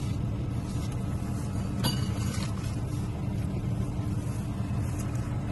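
Steady low rumble of a truck running, with one short metallic clink about two seconds in.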